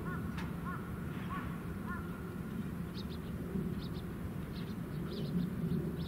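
Birds calling: a quick run of short, arched notes in the first two seconds, then scattered short, high chirps, over a steady low rumble.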